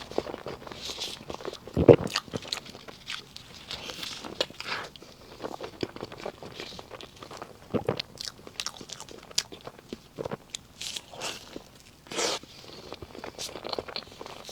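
Close-miked chewing and mouth sounds of a person eating soft layered cake, a string of irregular small wet clicks and smacks, with one louder knock about two seconds in.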